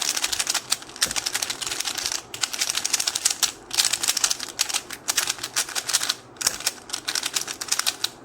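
Plastic 3x3 speed cube being turned quickly, its layers clicking in rapid runs with short pauses between them.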